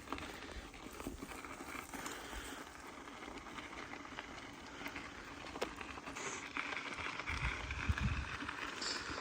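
Mountain bike moving up a dirt and gravel trail: tyres crunching, with scattered clicks and rattles from the bike. A low rumble near the end.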